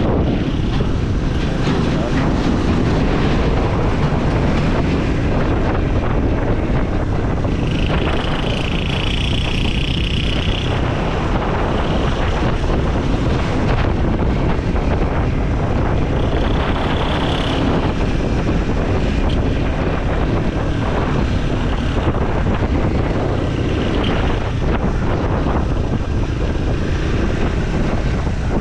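Triumph Scrambler 400X's single-cylinder engine running on the road, its pitch rising and falling with the throttle, with wind rushing over the microphone.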